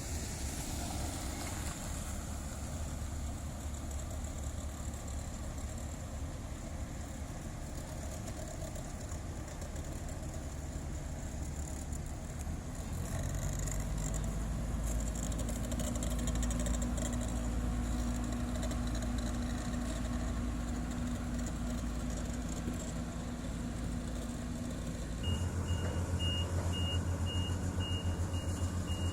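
Heavy diesel engines of road-paving machinery running steadily, the engine note deepening about halfway through. Near the end a louder engine comes in with a reversing alarm beeping steadily.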